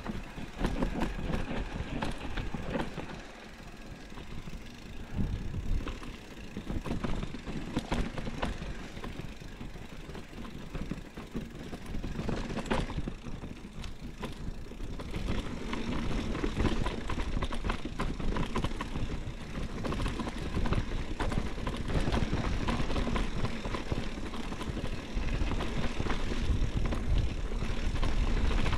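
Mountain bike riding a dirt singletrack: knobby tyres rolling over dirt and dry leaves, with a steady low rumble and frequent small clicks and rattles from the bike as it goes over bumps.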